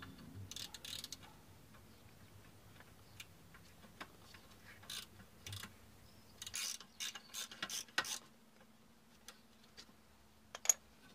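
Hand ratchet clicking in short spells as brake caliper carrier bolts are wound out, with one sharp metallic click near the end.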